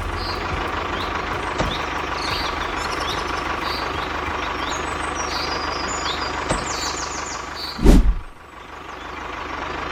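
A small motor running steadily, with birds chirping over it. About eight seconds in there is one loud knock, and the motor sound drops away before slowly building again.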